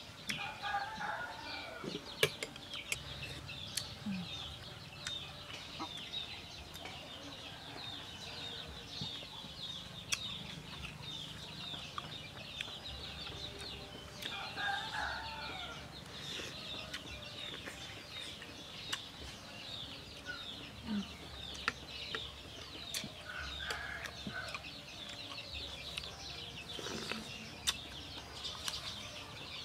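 Chickens clucking now and then over continuous high chirping of small birds, with a few light clicks of a metal spoon against a plate.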